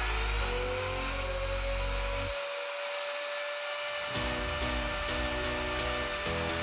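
Trim-router spindle of a small CNC machine running at full speed with a steady high whine, its pitch levelling off in the first second after spinning up. Background music plays underneath.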